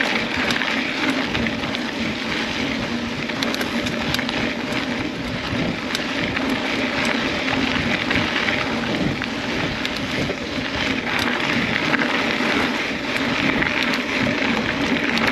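Mountain bike rolling along a dirt trail: a steady rushing noise with frequent small clicks and rattles from the tyres and the bike.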